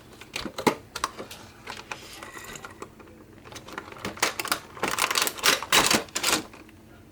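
A run of sharp, irregular clicks and knocks on hard surfaces, thickest in a flurry in the second half.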